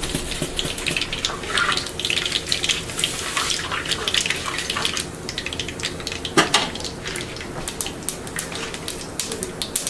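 Mustard and fenugreek seeds spluttering in hot oil in a clay pot: a rapid scatter of small pops and crackles over a steady hiss of frying. One louder knock comes about two-thirds of the way through.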